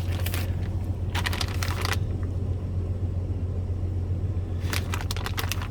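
A steady low hum, with three short bursts of crackling rustle: about a second in, briefly near the start, and again near the end.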